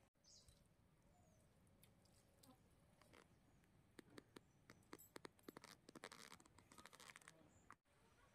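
Faint mouth sounds of eating rice by hand: chewing and lip smacks. A run of small clicks begins about four seconds in and stops shortly before the end.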